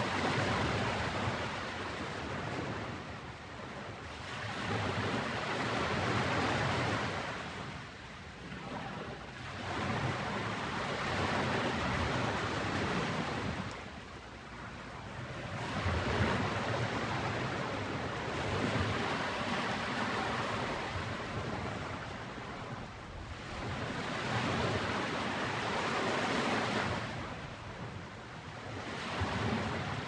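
Ocean waves washing in, the surf noise swelling and falling away every few seconds.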